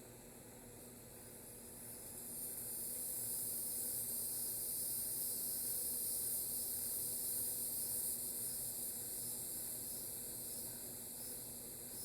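A gust of wind that swells to a high hiss a couple of seconds in, holds, then eases off, over a faint steady electrical hum.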